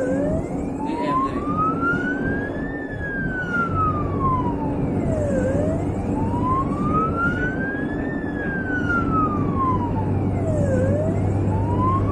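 Ambulance's own wail siren, heard from inside the cab, slowly rising and falling in pitch about every five seconds. Two full sweeps pass, and a third has begun by the end. A steady low engine and road hum runs underneath.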